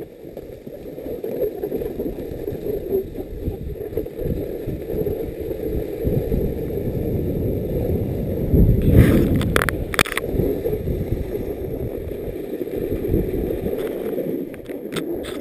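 Snowboard sliding and scraping over groomed, hard-packed snow, mixed with wind buffeting the microphone of a camera carried by a moving rider: a steady, uneven rumbling rush. A few sharp knocks come about nine to ten seconds in.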